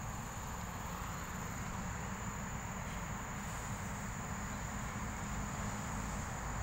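Insects droning in one steady, high-pitched tone, with a low rumble underneath.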